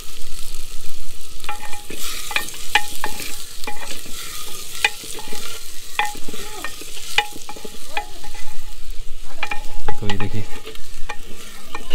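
A steel ladle stirring masala in a clay handi pot, clinking and scraping against the pot many times in an irregular rhythm. Under it is the sizzle of the onion-tomato mixture frying over the wood fire.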